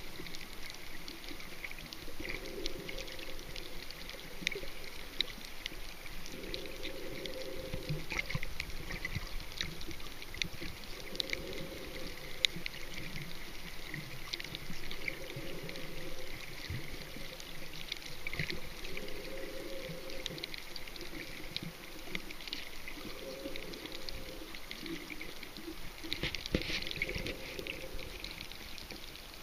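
Water bubbling and sloshing in regular surges about every four seconds, with scattered crackling clicks throughout.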